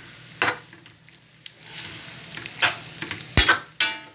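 Metal spatula scraping and clacking against a metal wok as sliced pork is stir-fried, over a faint sizzle. The loudest knocks come near the end, one leaving a brief metallic ring.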